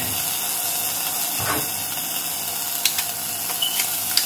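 A steady hiss, with a few sharp metallic clicks from about three seconds in as a stainless steel garlic press is squeezed and worked.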